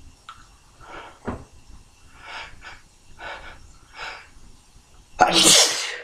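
A few short breathy sounds, then one loud, forceful human sneeze a little after five seconds in. The sneeze is induced by tickling the nose.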